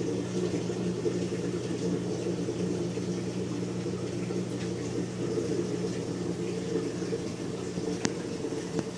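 Reef aquarium's circulation running: a steady pump hum under a constant wash of moving, bubbling water, with one brief tick about eight seconds in.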